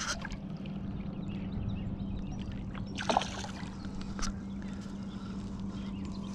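A hooked striped bass thrashing and splashing at the water's surface beside the boat, with one sharper splash about three seconds in, over a steady low hum.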